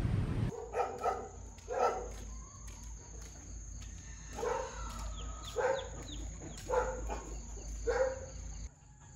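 A small dog barking, about six or seven short barks spaced roughly a second apart.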